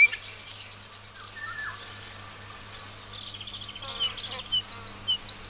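Small bird calling: a run of short, sharp chirps, sparse at first and then repeated two or three times a second in the second half, over a faint steady low hum.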